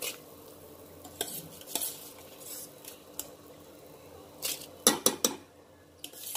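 Utensils clinking against a steel cooking pot as soaked seeraga samba rice is added to the boiling water: scattered sharp clinks, then a quick run of three or four about five seconds in.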